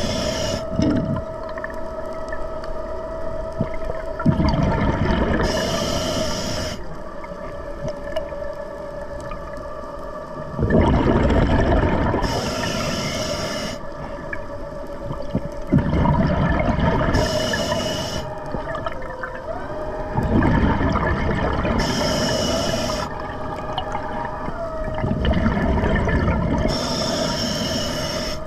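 A scuba diver breathes through an Atomic regulator, with a hiss on each breath in and a gush of exhaled bubbles, repeating about every five seconds. Under the breathing runs a steady hum from a Tusa underwater scooter pulling the diver along.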